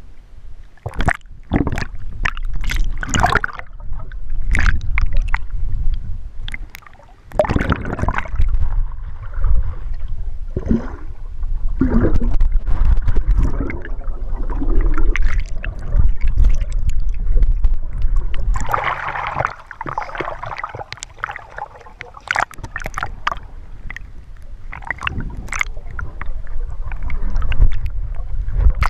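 Seawater surging and churning in a rocky blowhole gully, with repeated splashes and gurgling as the swells rush in and drain out. A heavy low rumble runs underneath, swelling and easing with each surge.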